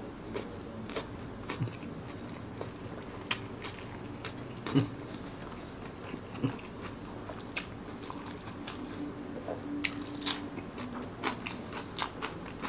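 Close-miked chewing and mouth sounds of a man eating rice, sambal eggs and okra with egg by hand: soft, wet chewing with scattered lip smacks and clicks.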